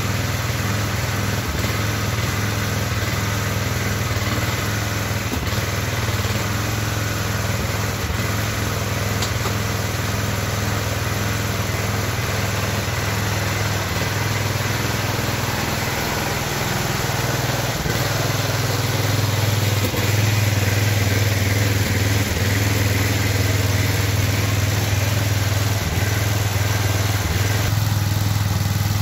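An engine running steadily with a low hum, getting a little louder about two-thirds of the way through.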